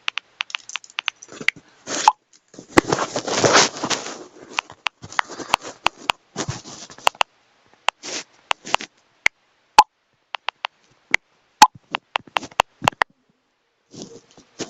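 Irregular small taps and clicks of typing on a device, with a short burst of rustling noise about three seconds in and a few sharper clicks later.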